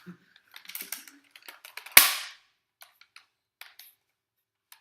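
Nerf blaster firing a foam dart once, a sharp pop about two seconds in, with light clicks of handling before and after.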